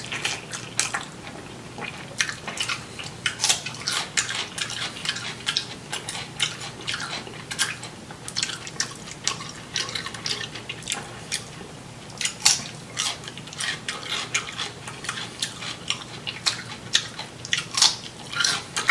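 Close-miked chewing of crisp cucumber: a dense, irregular run of crunches and wet mouth clicks, several a second.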